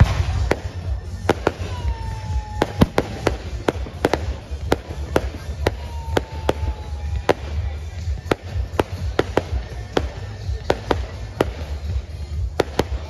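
Fireworks display: a rapid, irregular series of sharp bangs and crackles from bursting shells, with two drawn-out whistles, each falling slightly in pitch.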